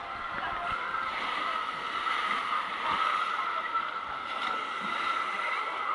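Steady rush of splashing water at a water slide's splash pool, growing a little louder, with a few faint knocks.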